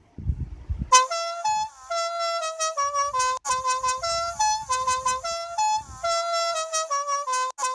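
Telolet bus horn: a multi-tone musical air horn playing a quick tune of short notes that slide between pitches, starting about a second in. Faint low thumps sound underneath.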